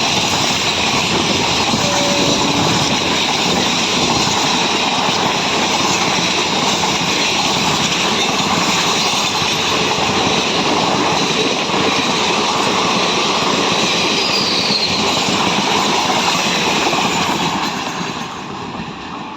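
Coaches of a passenger express train rushing past at speed, wheels clattering over the rail joints in a steady loud din that begins to fade about 17 seconds in as the train's end passes.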